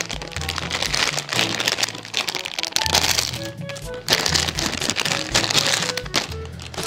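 Background music with a steady bass line, over the crinkling and crackling of a foil blind-bag packet being handled and opened.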